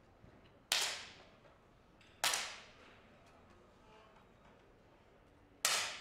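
Three 10 m air pistol shots, sharp cracks about 0.7 s in, a second and a half later, and near the end, each trailing off in a short echo.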